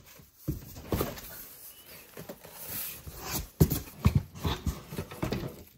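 A cardboard box opened by hand: tape is peeled from the seam, the flaps are pushed open and the plastic- and bubble-wrapped parts inside are handled. The sound is irregular scraping and crinkling, with a few sharper crackles a little past halfway.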